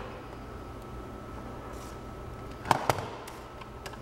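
Two sharp clicks in quick succession, then a lighter one, as a multimeter's test leads are handled and connected at a car-audio subwoofer's speaker terminals, over a faint steady hum.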